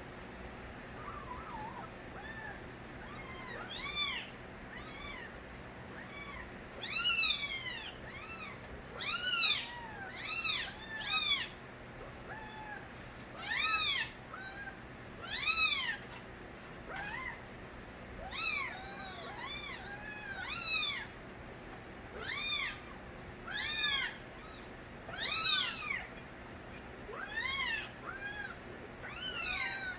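Kittens meowing over and over. The high-pitched cries each rise and fall in pitch and come about one every second or two, beginning about three seconds in.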